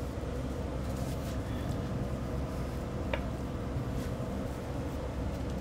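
Steady low background rumble and hum, with one short, faint squeak about three seconds in.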